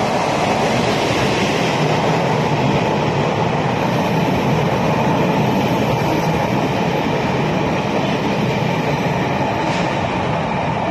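Taiwan Railways 'Island Star' tourist train passing through the station without stopping: a steady, loud running noise of wheels on rail and carriages going by.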